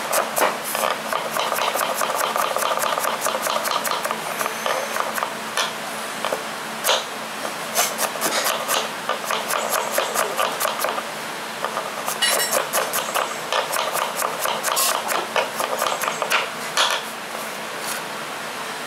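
Kitchen knife rapidly chopping red onions on a wooden chopping board: fast runs of blade knocks against the wood. The chopping pauses briefly about eleven seconds in, then stops near the end.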